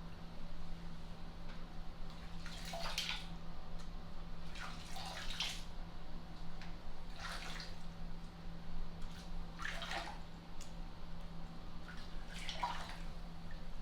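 Bathwater in a bubble-filled tub being moved about: five short splashing swishes a couple of seconds apart, over a steady low hum.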